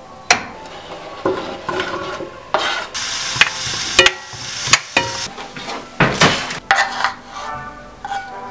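Sliced carrots and onion sizzling in a frying pan while a spatula stirs them, with a series of sharp knocks and scrapes of the spatula against the pan. Near the end the spatula scrapes the vegetables out of the pan onto a plate.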